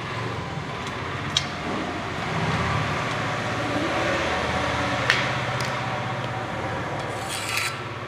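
A steady low mechanical hum, with a few light clicks and a short scratching sound near the end as a line is marked along a spirit level held against a plastered wall.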